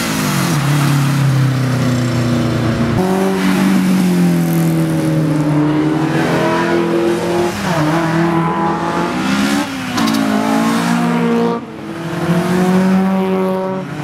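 Modified Japanese performance cars accelerating hard past one after another, their engines revving loudly. The engine pitch climbs and drops several times as the cars go by and change gear.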